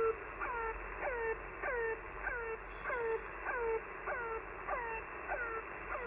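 The shortwave mystery station known as 'the Air Horn', received on an Icom IC-705 in upper sideband: a short honking tone that falls sharply in pitch and settles, repeating about twice a second over steady band hiss.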